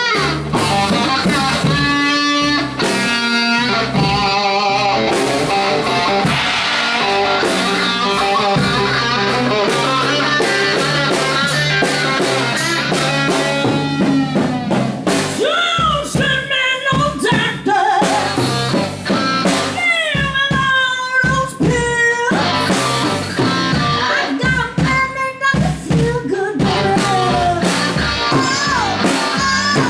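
A live band playing: guitar with a steady drum kit behind it, with bending, wavering lead lines running through.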